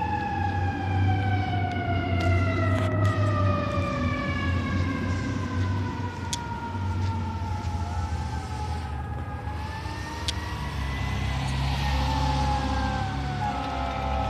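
Fire truck siren slowly winding down in pitch over several seconds, then rising and falling again, over the low rumble of the responding fire apparatus's engine.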